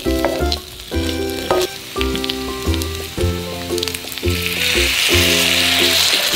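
Sliced potatoes frying in a hot stainless honeycomb wok, with a few clicks of a wooden spatula, under background music. About four seconds in, vegetable stock poured into the pan sets off a louder, steady sizzle.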